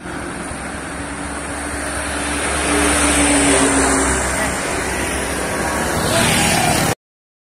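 Road traffic: motorcycles pass close by with engines running, and loaded trucks approach, growing loudest about three seconds in. The sound cuts off abruptly near the end.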